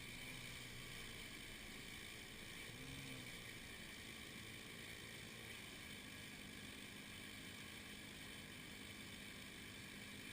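A faint engine running steadily, its pitch rising and falling briefly about three seconds in.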